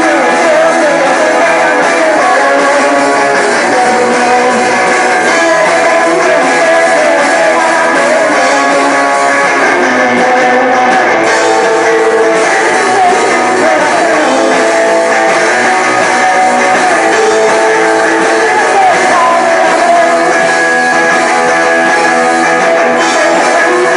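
Loud, dense guitar music: many wavering tones layered together at an unchanging level, with no breaks.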